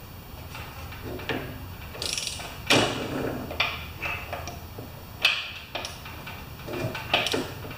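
Hand wrench working bolts on a lawn mower deck: irregular metallic clicks, clinks and short scrapes, with two sharper knocks about three and five seconds in.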